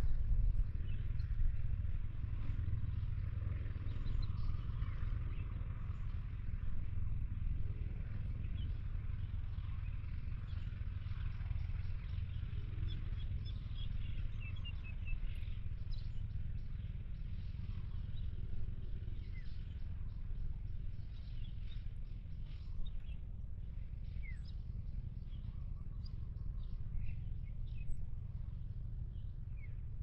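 Steady low rumble of outdoor ambience with faint, scattered short bird chirps over it.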